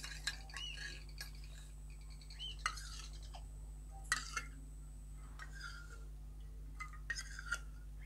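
Faint clinks and light scraping of a metal spoon against a small stainless-steel bowl of hand-feeding formula, with a few sharper clinks scattered through.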